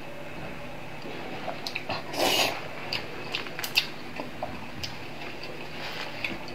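Eating a bite of braised pork skin, then a brief noisy rustle about two seconds in and scattered light clicks over a steady low hum.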